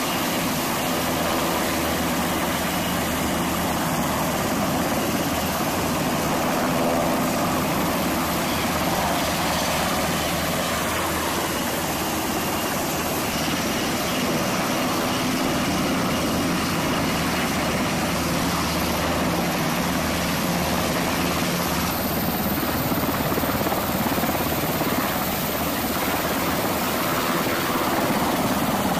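Several Navy MH-60 Seahawk helicopters running together, rotors and turbine engines turning steadily as one lifts off into a low hover. A loud, unbroken rotor and engine noise.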